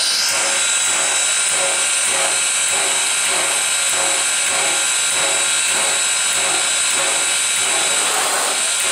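A standing steam locomotive, a 1907 Baldwin 0-6-0 switcher, hissing steam steadily. A regular mechanical pulsing of about two beats a second runs beneath the hiss.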